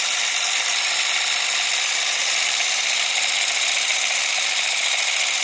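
PM Research No. 7 model steam engine running on steam, a steady whir with a hiss over it. Steam is escaping at a pipe joint where an O-ring has split.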